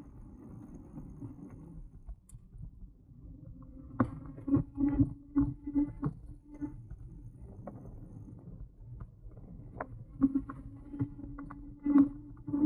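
E-bike jolting over an uneven surface: irregular knocks and rattles in two clusters, with a low hum that comes and goes.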